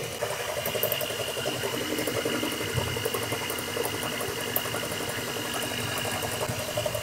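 Electric hand mixer running steadily, its beaters whisking egg yolks with sugar in a bowl: an even motor whine.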